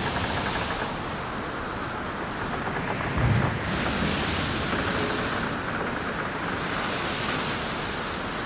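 Coastal wind and surf: a steady rushing noise that swells and eases every second or two, with wind buffeting the microphone in a low thump about three seconds in.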